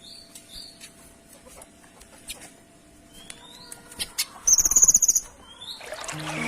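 Kinoy songbird calling: short, high, upward-sliding chirps, then a loud, very rapid high trill lasting under a second about four and a half seconds in. Music begins to fade in near the end.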